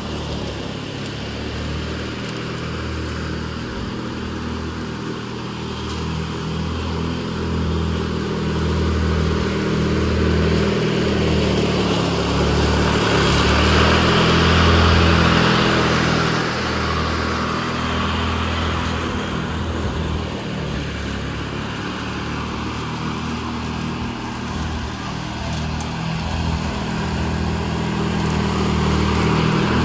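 Ride-on lawn mower engine running steadily while mowing, getting louder about halfway through and again near the end.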